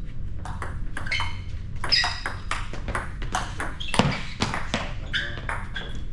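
Table tennis rally: the ball clicking back and forth off bats and table in a quick, irregular run of sharp pings, a few with a brief ring. The point ends with the score going from 4–5 to 5–all.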